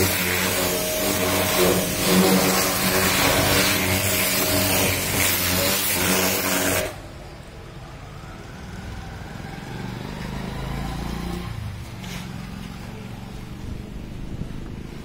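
Pressure washer running, its water jet hissing against a car's front bumper over a steady pump hum. About halfway through the spray stops abruptly, leaving only a faint low hum.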